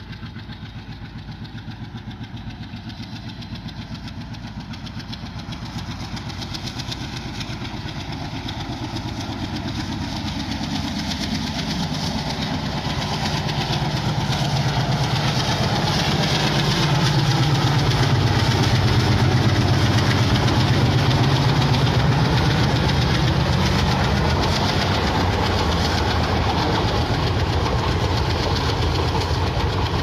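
WDM3A diesel locomotive's 16-cylinder ALCo 251 engine chugging as it hauls a passenger train toward and past the listener, growing steadily louder and loudest about two-thirds of the way through.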